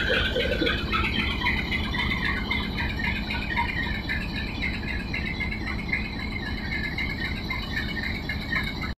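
PHA-20 class diesel-electric locomotive idling with a steady low rumble and hum, with scattered short high chirps over it.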